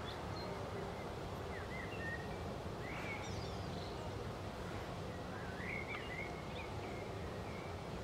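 Outdoor ambience: a steady low hiss with birds chirping now and then in short, high calls. The chirps come in small clusters, about two seconds in, around three seconds in and near six seconds in.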